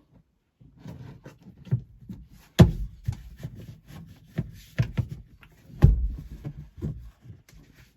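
Irregular knocks, clunks and rubbing from hand work with tools and parts, with two louder thuds about two and a half and six seconds in.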